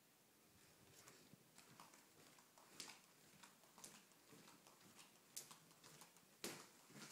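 Faint, irregular footsteps and small taps, roughly one a second, with a few sharper clicks.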